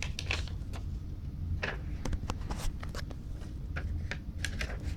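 Scattered light clicks and rustles of small plastic toy figures being handled, over a steady low hum.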